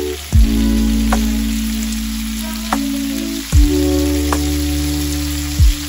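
Beef kafta searing in hot olive oil in a cast-iron grill pan, a steady sizzle. Background music with held chords runs over it, and a deep falling bass hit comes three times.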